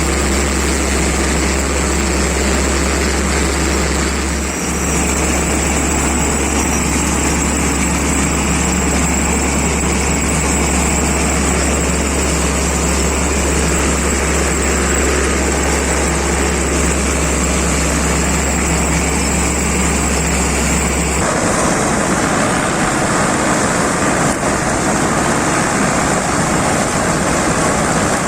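Combine harvester running steadily while harvesting rice, a loud, even machine noise. A low steady drone in it stops suddenly about three-quarters of the way through, and the machine noise carries on.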